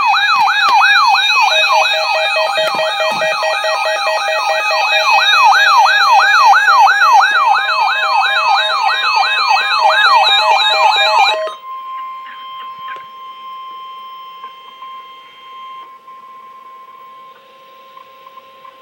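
Electronic alert siren announcing a severe thunderstorm warning: a loud, fast up-and-down wail, about three sweeps a second, that cuts off suddenly about eleven and a half seconds in. It gives way to a fainter steady high tone, the weather warning alarm tone.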